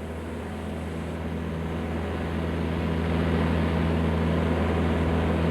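Propeller airplane engine droning at a steady pitch, growing gradually louder.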